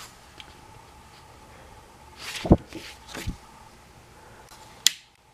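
Handling noise: a rustle leading into a dull knock about two and a half seconds in, a softer knock half a second later, and a sharp click near the end, over a faint steady hum.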